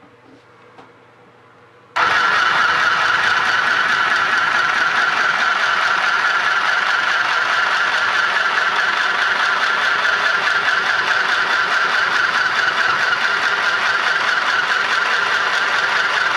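Mini portable sewing machine starting up about two seconds in and running steadily at one speed, stitching two pieces of cloth together. It is correctly threaded and sewing properly.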